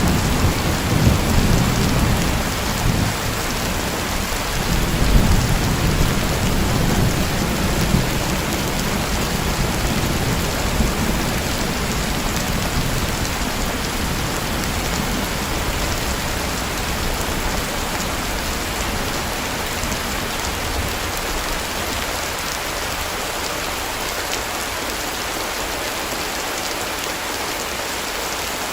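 Heavy rain falling steadily, with low rolling thunder that rumbles through the first part and dies away about twenty seconds in.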